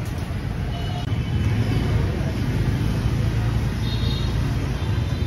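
Street ambience: a steady low rumble of traffic, with faint background voices.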